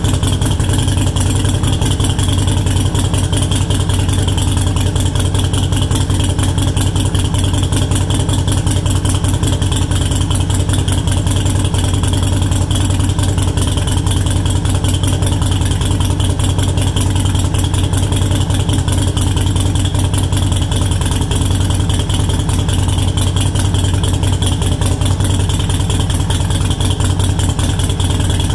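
A 2018 Harley-Davidson Sportster Iron 883's air-cooled 883 cc V-twin idling steadily through a Cobra Speedster Short dual exhaust, with an even, rapid run of exhaust pulses and a steady low hum. The ECU is tuned with a Vance & Hines Fuelpak FP3 to a lowered idle of 800 rpm.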